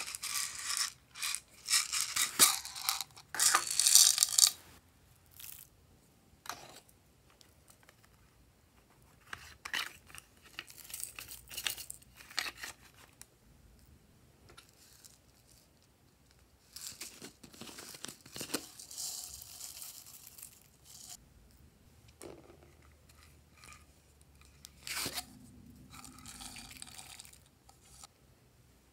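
Small plastic toy containers and packets being handled and shaken out over slime: crinkling, clicking and rattling as sequins, beads and glitter spill out. It comes in several bursts with quiet stretches between, loudest in the first four seconds or so.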